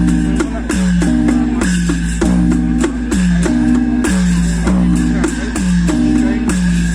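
Loud live drum music, with a pitched instrument repeating a short figure about every two-thirds of a second.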